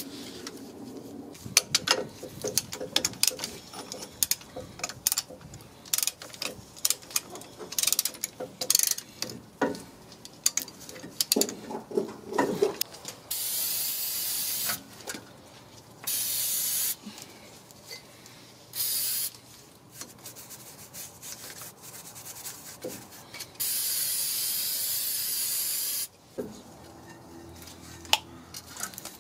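Aerosol brake cleaner sprayed onto a truck's rear brake caliper bracket and rotor, in several hissing bursts, the longest about two and a half seconds near the end. Before the spraying comes a stretch of scraping and rubbing clicks as the parts are scrubbed clean.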